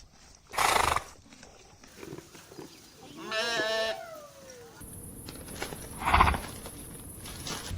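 A goat bleating once with a quavering, wavering call about three seconds in, between two short breathy bursts of noise, one near the start and one about six seconds in.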